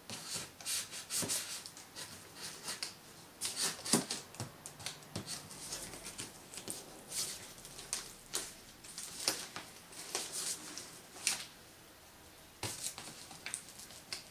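Scissors cutting open a cardboard box along its top seam: a series of irregular, crisp scrapes and snips.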